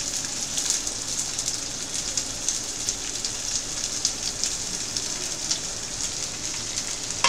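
Sliced onions sizzling in hot oil in a steel kadhai as they go in: a steady hiss dotted with many small crackles.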